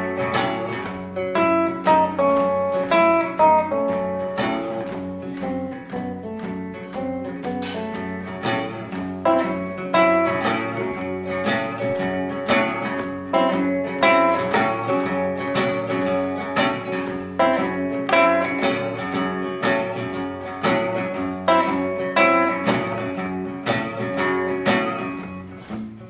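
Solo archtop guitar playing blues, with picked single-note melody lines over sustained lower notes in an instrumental passage. The playing gets quieter near the end.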